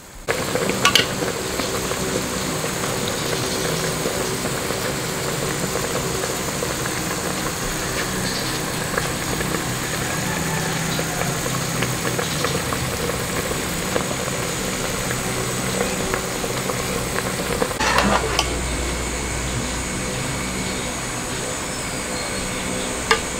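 Pork adobo simmering in a pot over a steady background hum, with a few light clinks of a metal ladle against the pot, one near the end as it is stirred.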